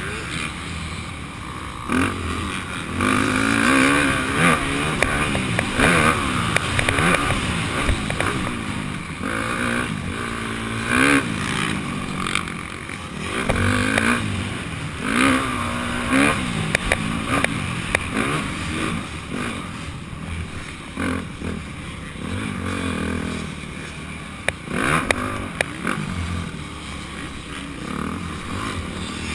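Dirt bike engine revving hard and dropping back again and again as the bike is ridden around the track, heard through a helmet-mounted camera. Sharp knocks from the rough ride are scattered through it.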